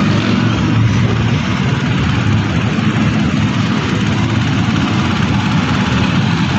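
A motor running steadily with a low hum and a constant rushing noise.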